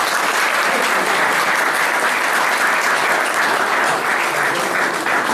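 Guests clapping together in sustained applause, steady throughout and fading out just after.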